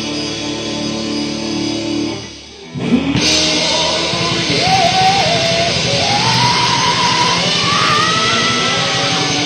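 Live rock band playing loudly with electric guitar and drums. A held chord drops away briefly about two and a half seconds in, then the full band comes back in with a lead line that climbs in pitch.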